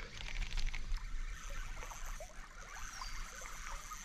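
Small splashes and trickling water against an inflatable stand-up paddleboard, with a steady high drone of insects behind.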